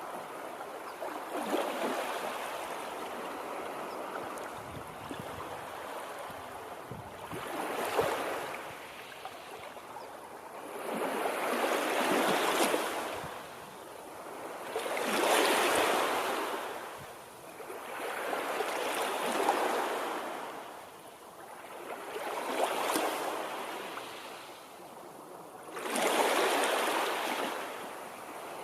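Water waves washing in, a rush of water that swells and fades again about every four seconds.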